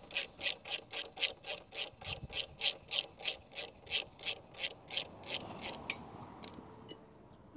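Even, rhythmic rasping strokes of metal on metal, about four a second, fading out about six seconds in, as a motorbike's front wheel spindle is worked free to get the wheel out.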